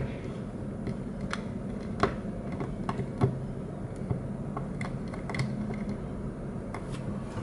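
Light hard-plastic clicks and knocks from a McDonald's One Piece Monkey D. Luffy Happy Meal figure as its arms and legs are moved by hand. The clicks are irregular, with a few sharper ones about one, two and three seconds in.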